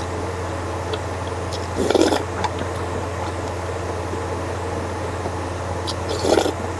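A person slurping spicy noodle-soup broth from a wooden spoon, twice: about two seconds in and again near the end. A steady low hum runs underneath.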